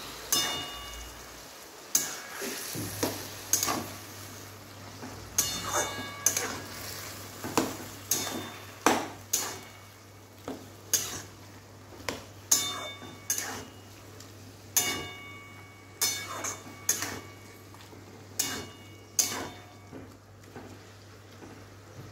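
Flat metal spatula stirring leafy greens in an aluminium kadhai, knocking and scraping against the pan about once or twice a second, many of the knocks ringing briefly. A low steady hum comes in about three seconds in.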